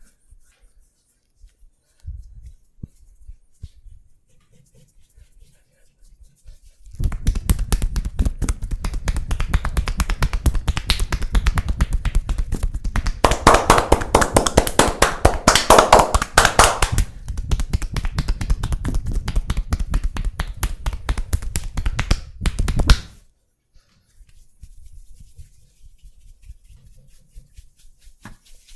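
Percussive massage strokes (tapotement): hands rapidly tapping and slapping on the body in a fast, even train of sharp claps. It starts about seven seconds in, runs for about sixteen seconds and stops abruptly.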